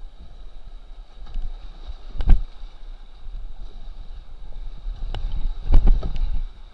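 Rushing whitewater around a kayak running a rapid, with wind buffeting the microphone. There is a sharp thump about two seconds in, and a cluster of loud thumps and splashing a little after five seconds.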